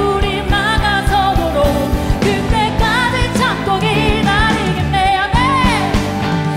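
Live worship band with a vocal group singing a Korean-language worship song: several voices together over drums, bass guitar, electric guitar and keys, with a steady drum beat throughout.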